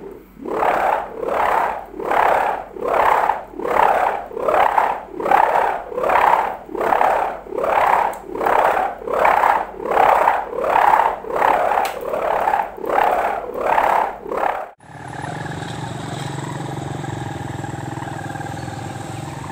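Kite hummer moaning in a regular pulsing rhythm, about three swells every two seconds, each swell bending in pitch as it rises and falls. About fifteen seconds in it cuts off suddenly and a steadier drone with several held tones and a low hum takes over.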